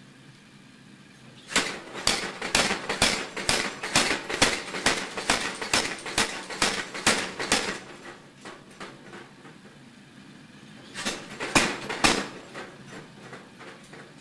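Blacksmith's hammer striking steel on an anvil while forging a tong half from 1-inch round sucker rod. A run of about twenty sharp ringing blows, about three a second, tapers off; a few more blows come near the end.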